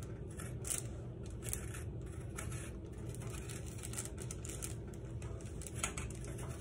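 Two metal forks scraping and raking through baked spaghetti squash, pulling the flesh into strands: a series of short, irregular scratchy strokes.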